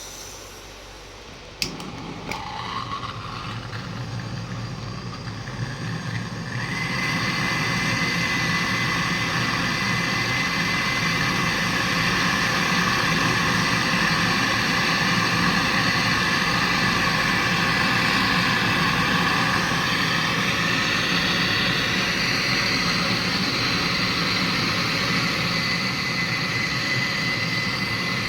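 Refrigerant gas hissing steadily as a refrigerator is charged, over the low hum of its running compressor. A sharp click comes about a second and a half in, and the hiss builds over the next few seconds before holding steady.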